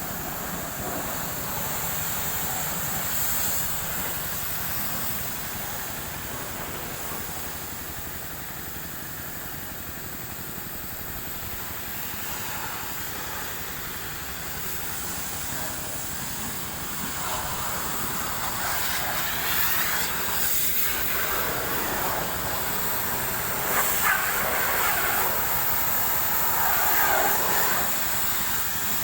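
High-pressure water jet spraying over a bus engine, a steady hiss that gets louder and more uneven in the second half as the spray moves around.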